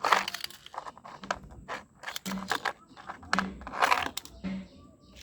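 Plastic toy vehicles being pushed and dug through sand: a run of irregular crunching and scraping noises, with a few short low hums between them.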